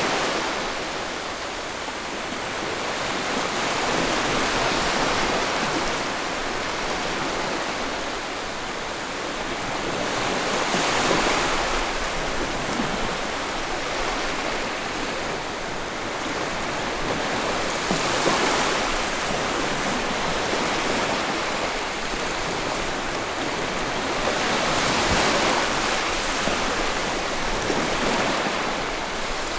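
Sea waves breaking and washing on the shore in a continuous rush, swelling with each wave about every seven seconds.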